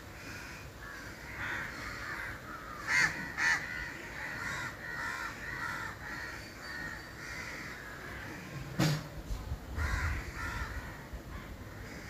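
Crows cawing on and off, with the loudest calls about three seconds in and again near nine seconds.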